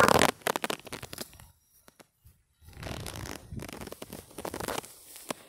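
Water buffalo grazing, ripping grass up with its mouth: a sharp loud rip at the start, a run of quick crackly tearing, a pause of about a second, then a longer run of tearing and crunching.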